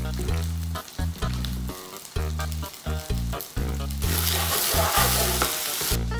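Background music with a throbbing bass line plays throughout. About four seconds in, pieces of chicken start sizzling loudly in a frying pan as they are tossed, and this stops abruptly after about two seconds.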